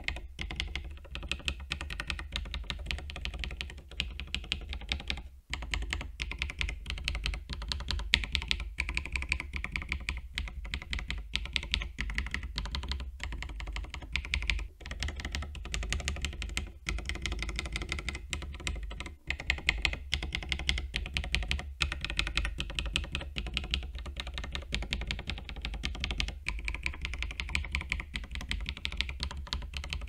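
Rapid, continuous clacking of mechanical key switches being typed on a small custom macro keypad in a 3D-printed case. The case is heard in turn stock, with PE foam pads between the switches and PCB, and with PE foam plus a car sound-deadening mat in the base: mods meant to turn a hollow clack into a deeper tone.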